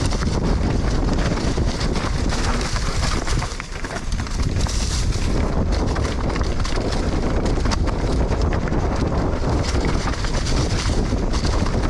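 Wind rushing over the camera microphone at speed on a mountain bike ride, with tyres on dirt and the bike rattling and knocking over bumps. The noise eases briefly about three and a half seconds in.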